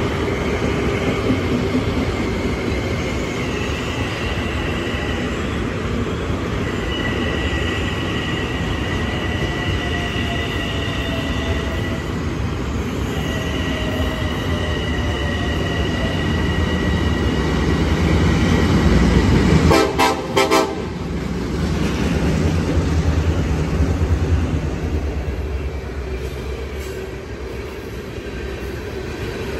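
Trains passing through a station: a rolling rumble with a high steady whine for the first twenty seconds, then a short loud horn blast about 20 seconds in, and the heavier rumble of the NYAR freight's diesel locomotives (an MP15AC and two GP38-2s) and their hopper and gondola cars rolling past.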